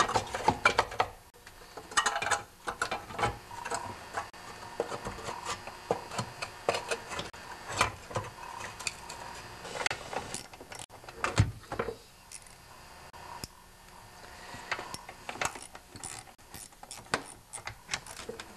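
Metal knocks as the engine's blower housing is fitted into place, then a socket ratchet clicking in quick runs as the shroud bolts are turned in.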